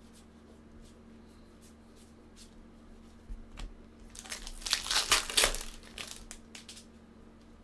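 A trading-card pack wrapper being torn open and crumpled: a loud crinkling rip from about four to six seconds in. A few light clicks and rustles come before and after it.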